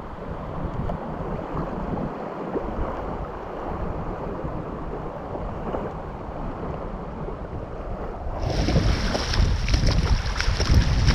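Wind buffeting the microphone over the wash of surf. About eight seconds in, the sound turns abruptly louder and brighter.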